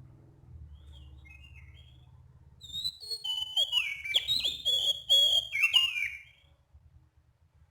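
Oriental magpie-robin (kacer) singing: a few faint notes, then about three and a half seconds of loud, clear whistles and quick varied notes with sliding pitches, stopping about six seconds in. A faint low hum lies under the first few seconds.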